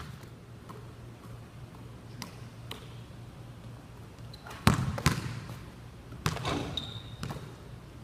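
A basketball bouncing on a hard court several times, with echoing thuds that come loudest and closest together a little past the middle. A brief high squeak comes near the end.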